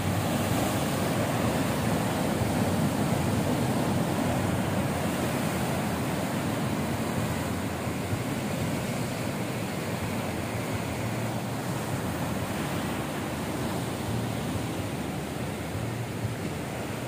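Ocean surf: large waves breaking on a rocky coral shore, a continuous rush of water, a little louder in the first few seconds.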